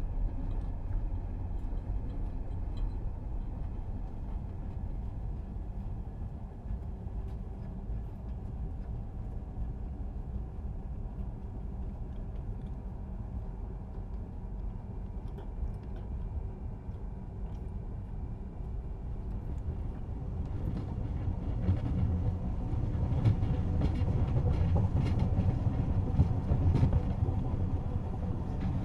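Commuter train heard from inside the carriage: a steady low rumble of the train running, growing louder about two-thirds of the way through with more rattles and knocks from the wheels on the track.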